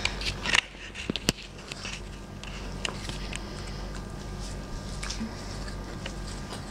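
Husky biting and gnawing on a whole pear: a few sharp crunching clicks in the first second and a half, then quieter scattered gnawing clicks over a steady low hum.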